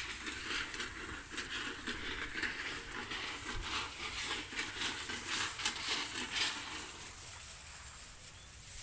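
Irregular rustling and crackling of corn plants being pushed through on foot, dying down about seven seconds in.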